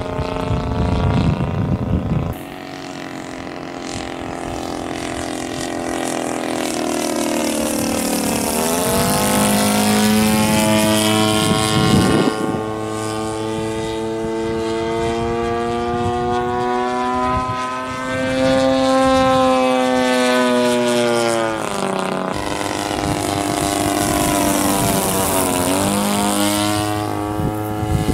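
Focke-Wulf 190 RC scale model's engine and propeller droning steadily in flight, its pitch dipping and rising twice as the model passes and turns.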